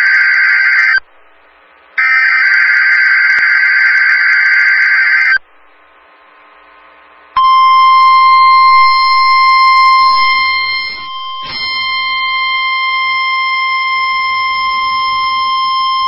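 NOAA Weather Radio Required Weekly Test signal. It opens with SAME digital header bursts, a harsh buzzing data screech: the end of one burst, then a second lasting about three seconds, each followed by a pause. About seven seconds in comes the steady 1050 Hz weather radio warning alarm tone, held for about nine seconds.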